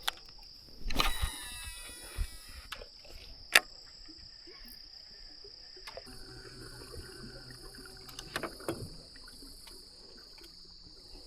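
Night insects, crickets, chirping in a steady high drone, with a brief whirring sound about a second in, a few scattered clicks and knocks, and a faint low hum joining about six seconds in.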